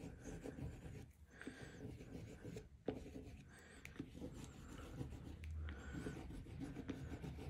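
Wax crayon scratching across textured watercolour paper in repeated short strokes, faint.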